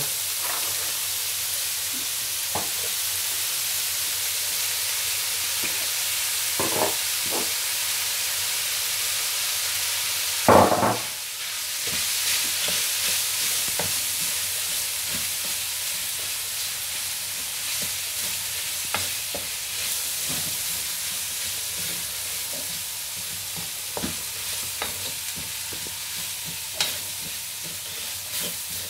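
Chicken and shredded vegetables sizzling in a hot wok while being stirred and scraped with a wooden spatula, with scattered clicks. There is one loud knock about ten seconds in.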